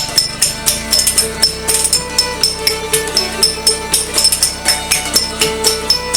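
Background music with a steady beat, led by rhythmic tambourine-like percussion over sustained notes.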